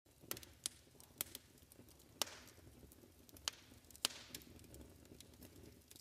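Wood fire crackling: logs burning with irregular sharp pops, a few of them trailing off in a brief hiss.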